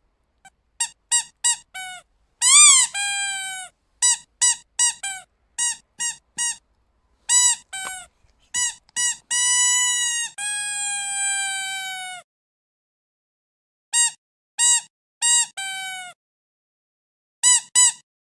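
Squeaky dog toy being squeezed over and over: quick short squeaks in bursts of several, with a few long drawn-out squeaks that sag slightly in pitch, and short pauses between groups.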